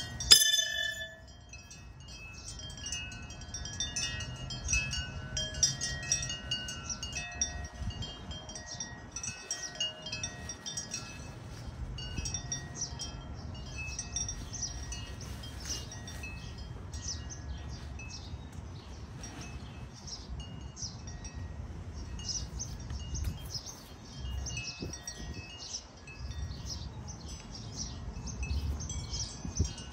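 Wind chimes tinkling and ringing throughout, many overlapping metallic tones. About a third of a second in, a single sharp strike with a brief ring, a thrown knife hitting the wooden target, stands out above them. A low rumble runs underneath.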